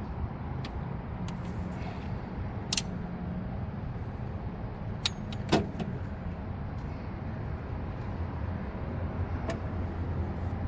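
Scattered sharp metallic clicks and clinks of hand tools on metal, loudest about two and a half and five and a half seconds in, over a steady low hum.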